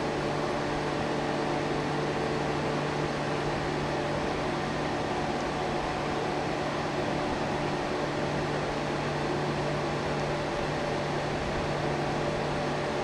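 A steady mechanical hum with a low, unchanging drone.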